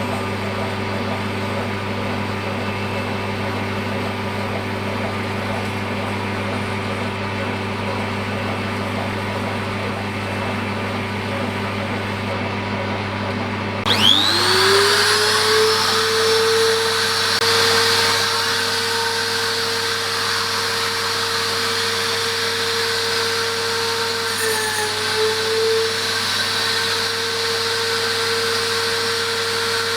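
A machine hums steadily, then about halfway through a high-speed grinder motor spins up with a rising whine and runs on at a steady pitch.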